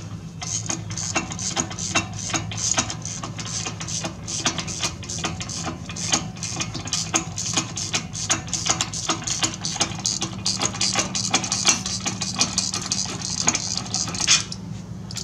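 Hand ratchet with an 18 mm socket clicking rapidly and continuously as a brake caliper bracket bolt is backed out; the clicking stops abruptly near the end. A steady low hum runs underneath.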